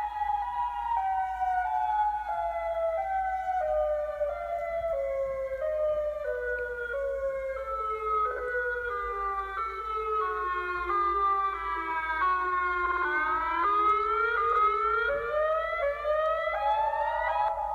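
A "megahorn" siren-like horn tone, one pitched note that drops in small steps about every half second, then climbs back up in quicker steps near the end.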